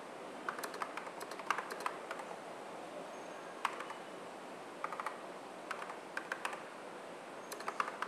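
Typing on the keyboard of a 1983 prototype Twiggy Macintosh: quick runs of keystroke clicks in short bursts with pauses between them.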